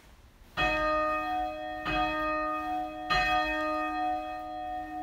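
A bell struck three times, about a second and a quarter apart, each stroke ringing on over the last. It is the bell rung at the consecration of the wine in the communion prayer.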